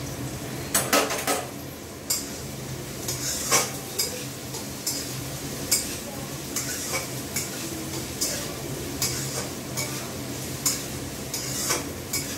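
Metal spatula scraping and clinking against a metal kadai in irregular strokes, stirring carrots, beans and peas frying in oil, over a steady low hum.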